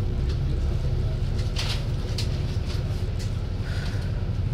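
Inside an Alexander Dennis Enviro400 double-decker bus moving slowly in traffic: a steady low engine and road rumble, with a few short clicks and rattles and a brief squeak near the end.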